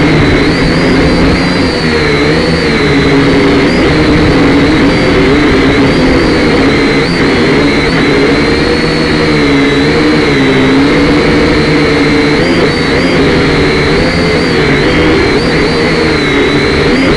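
Multirotor drone's electric motors and propellers whining loudly, heard from the drone's own camera, with several pitches wavering up and down together as the motors speed up and slow down to hold and steer the craft.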